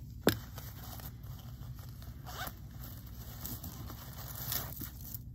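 Zipper on a small embroidered brocade jewelry pouch being drawn open, with the fabric rustling. A sharp click just after the start is the loudest sound.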